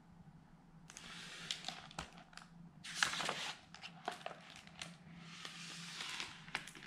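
Pages of a hardcover picture book being turned and pressed flat by hand: paper rustling and sliding in several short spells, with a few light clicks and taps.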